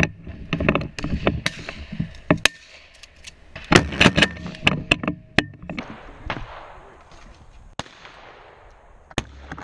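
Shotgun fire and knocks heard through a camera mounted on the gun's barrel: a run of sharp cracks, the loudest cluster about four seconds in.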